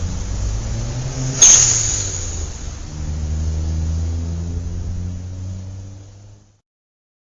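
A vehicle engine running, with a sudden sharp burst of noise about one and a half seconds in, then running steadily again before fading out.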